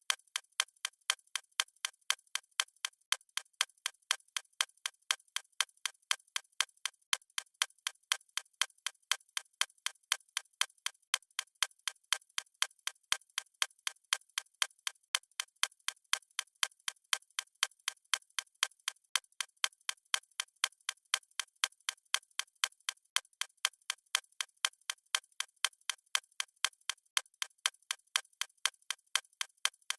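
A watch ticking: a quick, even train of sharp, light ticks with no low end, running without a break.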